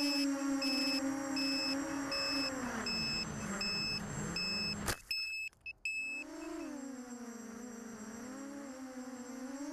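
Brushless motors and propellers of a ZMR-250 FPV quadcopter (Sunnysky X2204S 2300KV motors, Gemfan 5040 props) heard from the onboard camera, a steady whine that rises and falls in pitch as the throttle changes. Short electronic beeps repeat about twice a second through the first six seconds. About five seconds in there is a sharp click and the sound cuts out in brief gaps for about a second, then the motor whine resumes.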